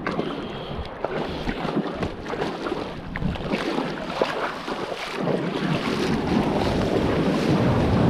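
Shallow seawater sloshing and splashing around the legs of someone wading, with wind rumbling on the microphone.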